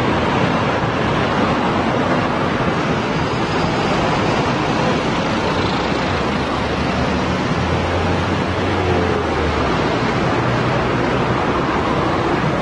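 Continuous road traffic: a steady rush of passing vehicles, with a low engine hum standing out for a couple of seconds past the middle.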